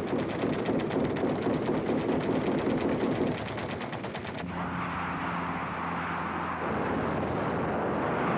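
Rapid automatic cannon fire: a fast, even run of shots for about three seconds, which then stops. A steadier noise with a low hum follows.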